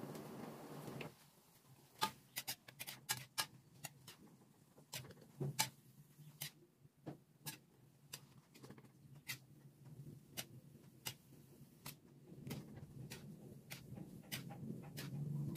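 Metal spatula clinking and scraping against an aluminium wok while cooked chicken gizzards are scooped out into a bowl: a string of irregular sharp clicks, over a faint low hum.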